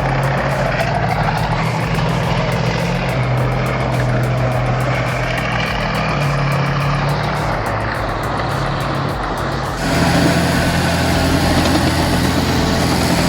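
A heavy vehicle's engine running steadily, with background music over it. The sound changes abruptly about ten seconds in.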